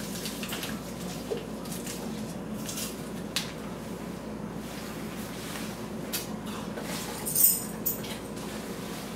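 Plastic freezer-pop sleeve crinkling and clicking as it is squeezed and sucked on, in small scattered crackles, with one louder crackle about seven and a half seconds in.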